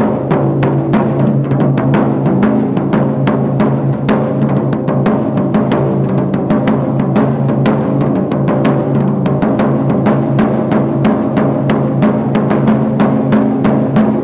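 A large taiko drum beaten with bachi sticks in a fast, steady stream of strokes, about four or five a second. The drum's deep body tone keeps ringing under the hits.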